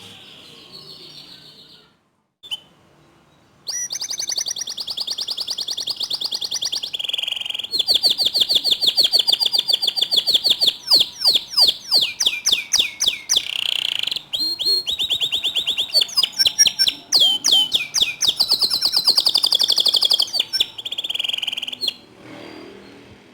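Domestic canary singing a long, fast song of rapid trills and rolls, switching from one run of repeated notes to another, with some sweeping notes between. The song starts abruptly about four seconds in and breaks off shortly before the end.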